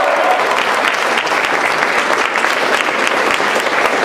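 Audience applauding steadily, with a cheering voice trailing off right at the start.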